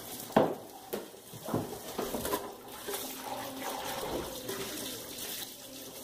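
Kitchen tap running into the sink while dishes are washed by hand, with a couple of sharp clinks of crockery in the first second and a half.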